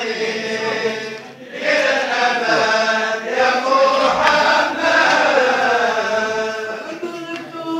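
A group of men's voices chanting a Sufi dhikr together, the melodic line rising and falling; the chant briefly drops away about a second and a half in.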